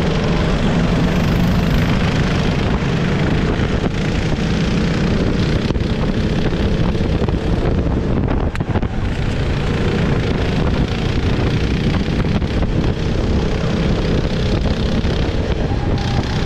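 Sodi RT-8 rental kart's engine running at racing speed, heard from an onboard camera, with heavy wind noise on the microphone.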